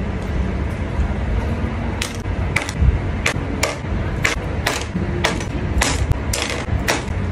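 Jewelled hairpins and ornaments from a Peking opera headdress clicking down one by one onto a clear plastic tray: about a dozen sharp clicks, starting about two seconds in.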